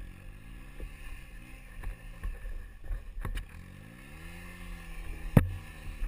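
Side-by-side UTV engine revving up and down repeatedly while being pulled out of deep snow on a tow strap, with one long rise held near the end. A single sharp knock comes about five seconds in and is the loudest sound.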